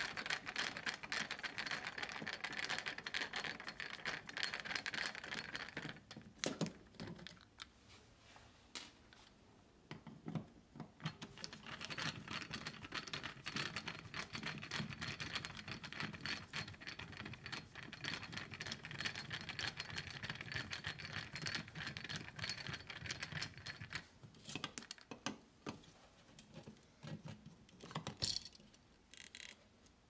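Screwdriver turning out the metal mounting screws of a wall outlet: a dense run of small clicks and scraping as the screws turn, in two long stretches with a quieter pause between. A few sharper knocks near the end as the outlet is pulled from its box.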